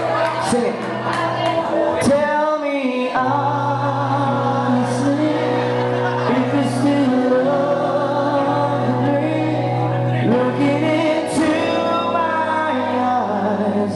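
Live rock band playing a song: electric guitars, bass guitar and drums with singing.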